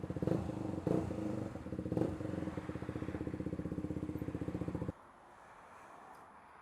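KTM 125 Duke's single-cylinder four-stroke engine running at low revs with an even pulse, with a few sharp knocks in the first two seconds. It cuts off suddenly about five seconds in as the engine is switched off.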